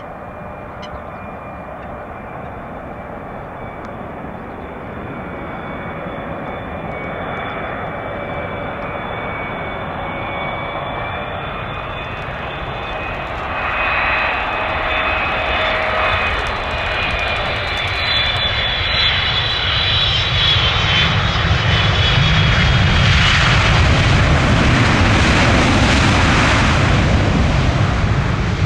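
Jet airliner's engines: a high whine over a rumble, growing steadily louder as the plane comes close. The low rumble builds in the last third and is loudest near the end.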